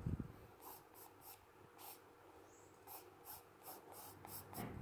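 2B graphite pencil scratching on textured drawing paper in about a dozen short, quick, irregular strokes, as strands of hair are sketched in; faint.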